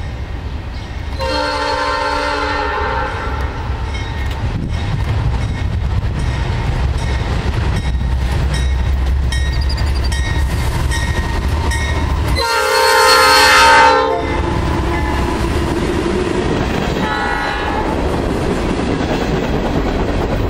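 Norfolk Southern freight train's diesel locomotive sounding its multi-note air horn three times as it approaches and passes: a blast about a second in, the loudest one near the middle as the locomotive goes by, and a short one later. Under it is the steady low rumble of the locomotive and then the freight cars rolling past on the rails.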